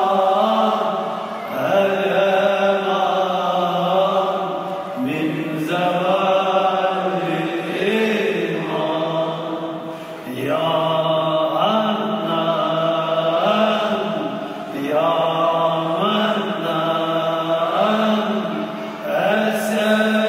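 Men's voices chanting a Sufi hymn, a lead voice with others singing along, in long held melodic phrases that break off briefly every four to five seconds.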